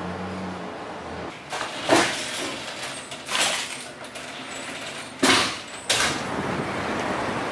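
A steel door being opened and pulled shut: a few sharp knocks and clatters, with the loudest bang about five seconds in. Near the end comes a steady rushing noise.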